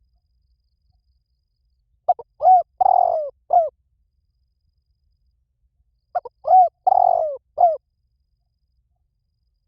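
Spotted dove cooing: two matching calls about four seconds apart, each a short run of low cooing notes with a longer note in the middle.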